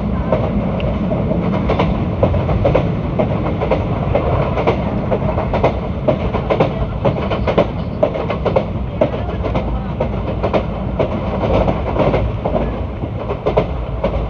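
ICF passenger coach wheels running over the track at speed: a steady rumble broken by irregular clickety-clack knocks from the rail joints.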